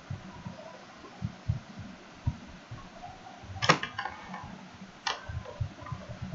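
Irregular soft low thumps over faint room noise, with two sharp clicks, the louder one a little over halfway through and another about a second later.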